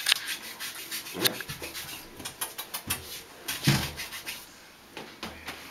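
Small splashes and knocks of water and plastic toys in a baby's bath, with a few short, soft voice sounds about a second, three seconds and nearly four seconds in.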